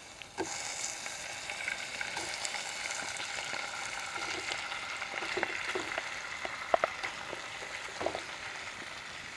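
Raw prawns hitting hot oil in a non-stick saucepan and sizzling steadily, the sizzle starting about half a second in. A few sharp knocks of a wooden spatula against the bowl and pan come near the middle and towards the end.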